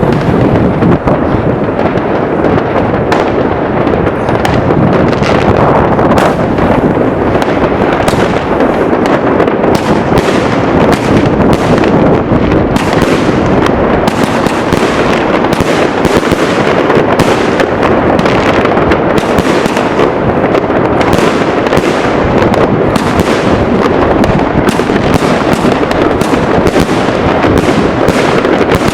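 Firecrackers going off in a fast, unbroken run of sharp bangs and crackles, many per second, with no pause.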